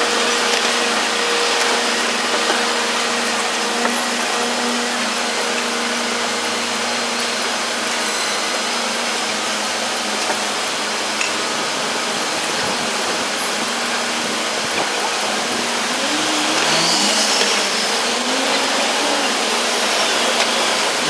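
Steady construction-site and city traffic din, with a diesel engine hum holding one pitch through the first half. Wavering pitched sounds come in near the end.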